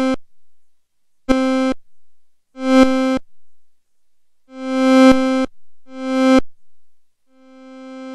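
A VCV Rack virtual modular synthesizer note, shaped by its ADSR envelope module, played over and over at the same pitch while the attack is being turned up. The first notes start at once, later ones swell in, and the last, starting near the end, fades in slowly: a longer attack stage.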